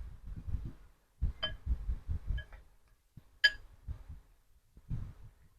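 Soft low thumps and handling rumble, with two or three short, light clinks.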